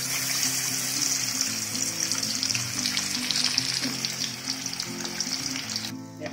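Masala-coated fish slice shallow-frying in hot oil in a kadai: a dense, steady sizzle with fine spitting crackles, which stops abruptly near the end.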